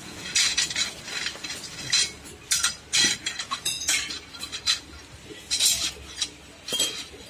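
Drilled galvanized steel flat strips clinking and clattering against one another as they are picked up off a pile and gathered into a bundle by hand, in irregular sharp metallic clinks.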